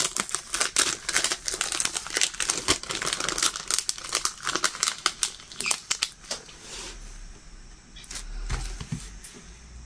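Clear plastic cover film on a diamond painting canvas crinkling and crackling as hands lift and smooth it, dying down to quieter handling after about six seconds.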